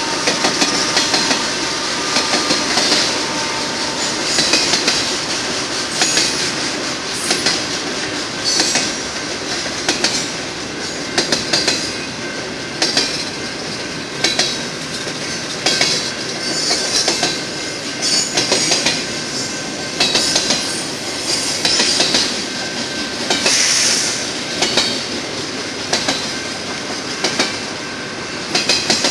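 Cars of a double-stack container freight train rolling past, with a steady rumble and hiss of steel wheels on rail. Over it come regular sharp clicks of the wheel sets, often in pairs, about one group every second or so.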